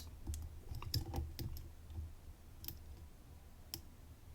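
Faint, irregular metal clicks and light scrapes of a dimple lock pick working the pins of a 10-pin Domus dimple Euro cylinder under heavy tension, with a small cluster of clicks about a second in.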